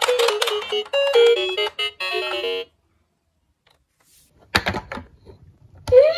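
A bright chiming melody plays for about two and a half seconds and cuts off into silence. Near the end there are a few knocks, then a toy ambulance's electronic siren starts with a rising wail as its roof button is pressed.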